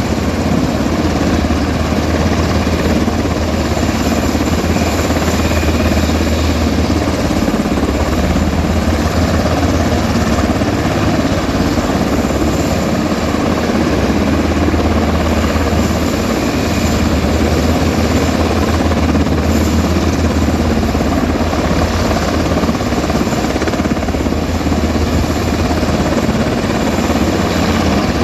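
Rescue helicopter running, a loud, steady rotor and engine noise that holds without a break.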